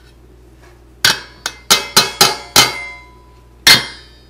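A metal plate knocked against the rim of a stainless steel mixing bowl: six sharp metallic clanks in quick succession, then a last, loudest one near the end, each ringing briefly. It is the knocking that shakes the last flour and spices off the plate into the bowl.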